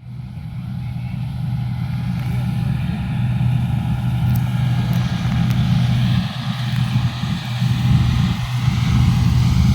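The engine of a wheat-harvesting machine running steadily, a loud, even low hum with a constant drone.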